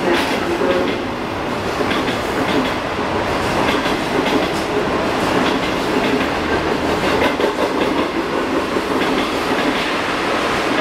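Type 25Z passenger coaches rolling past on the rails, a steady rumble with the wheels clicking over rail joints and points.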